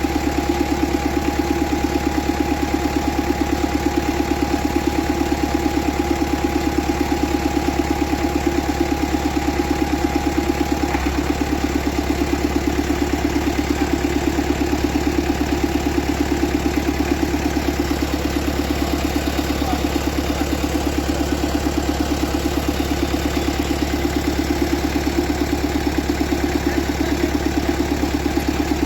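Vehicle engine idling steadily. A faint high steady whine over it stops about a third of the way through.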